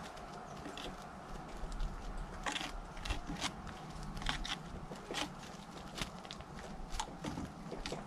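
Great spotted woodpecker pecking at suet balls in a wire feeder and at the wooden post it clings to: irregular sharp taps mixed with scraping.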